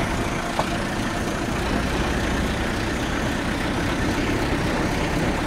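Steady engine and road noise of a vehicle driving along, heard from inside the cabin.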